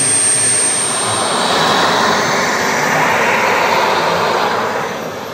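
Model jet turbine engine running: a high whine over a loud rushing sound that swells and then eases slightly toward the end.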